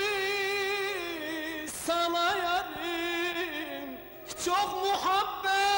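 A man singing a slow Turkish arabesk song over instrumental backing, in long held notes with wavering, melismatic ornaments. The voice comes in three phrases with brief breaks between them.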